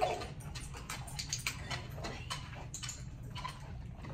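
Scattered light clicks and taps from a Labrador retriever moving about on a hard floor, over a steady low hum.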